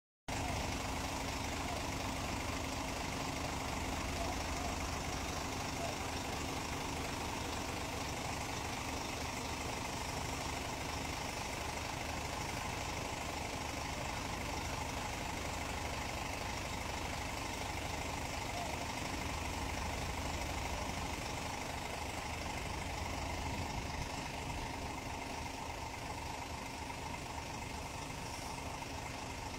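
Heavy diesel engine running steadily at idle, a constant low rumble with a steady hum over it.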